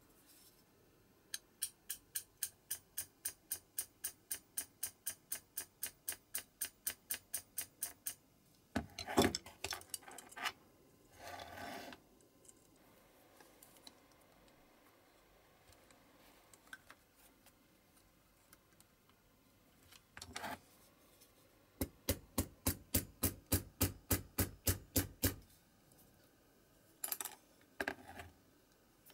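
Small hammer tapping lightly and evenly on a metal pin in a diecast toy's boom, a run of about two dozen taps at three to four a second. After a pause with some scraping and handling of metal parts, a second, slightly faster run of taps follows.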